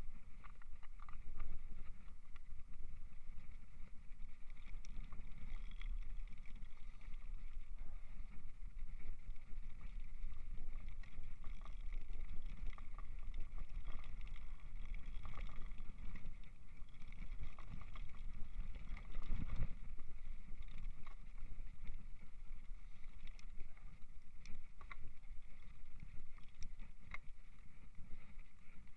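A mountain bike being ridden over a rough field track and onto a stony track, heard as a steady low rumble on the camera microphone. Scattered clicks and knocks come from the bike over bumps, with one heavier thump a little past the middle.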